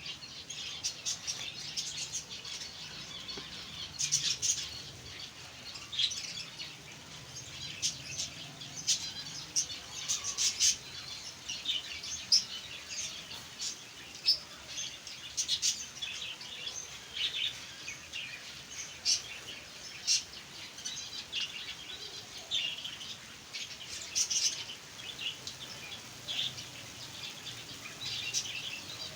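A flock of small aviary birds chirping, with many short, high chirps overlapping all the way through.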